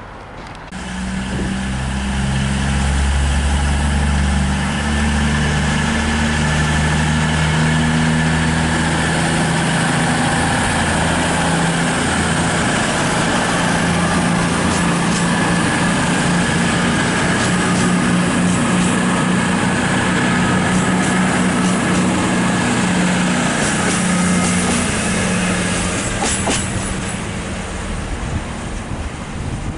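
CrossCountry Class 220 Voyager diesel multiple unit moving away along the platform, its underfloor Cummins diesel engines running with a deep steady drone. Wheels click over the rail joints later on, and the sound fades near the end as the train draws off.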